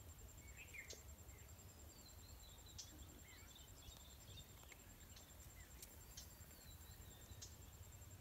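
Near silence: faint outdoor ambience with low rumble and small bird chirps now and then.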